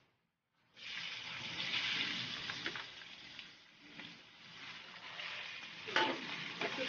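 Raw pork pieces sizzling as they drop into hot oil in a wok of sautéed garlic and onion; the sizzle starts suddenly about a second in. A metal spatula stirs and knocks against the wok near the end.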